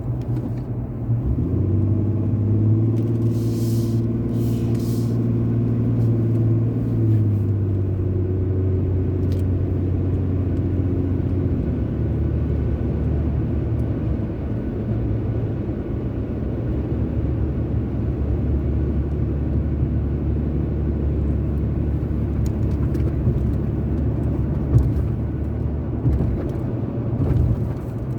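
Car driving on a road: engine hum and tyre and road rumble. The engine note drops in pitch twice in the first dozen seconds, then settles into a steady low rumble.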